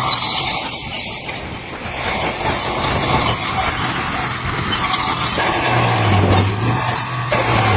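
Heavy earthmoving machinery at work: a diesel engine running under a steady high metallic squeal, with a brief dip in loudness about a second and a half in.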